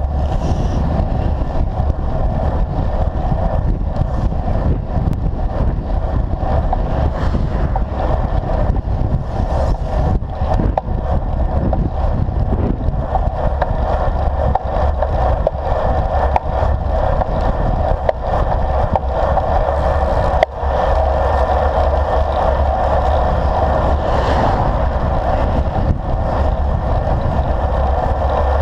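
Wind buffeting a handlebar-mounted action camera on a road bike riding at speed, a loud, steady rush and rumble with the hum of the tyres on the asphalt underneath.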